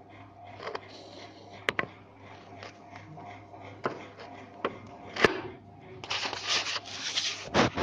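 Hard plastic clicks and knocks from a Samsung SCX-3201 laser printer's casing as its scanner unit is worked free and lifted off. The sharpest click comes about five seconds in. From about six seconds to the end there is dense scraping and rustling.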